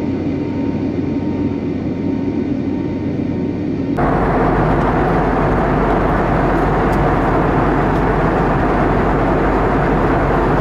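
Jet airliner cabin noise from a Boeing 777's Pratt & Whitney PW4000 engines, heard from a seat just ahead of the engine. A steady drone with a faint high tone gives way abruptly, about four seconds in, to a louder, steady rush of engine and air noise.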